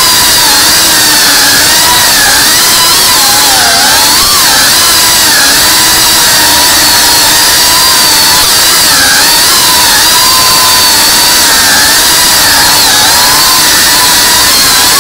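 Tiny whoop FPV quadcopter's small motors and propellers whining steadily, the pitch constantly rising and falling as the throttle changes.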